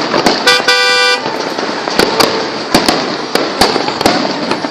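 Firecrackers going off in rapid, irregular succession: sharp bangs over a dense, continuous crackle. About half a second in, a steady horn-like toot sounds for under a second.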